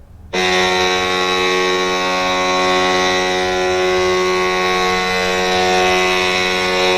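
San Jose Sharks goal horn: one long, steady horn blast at a single pitch, starting about a third of a second in.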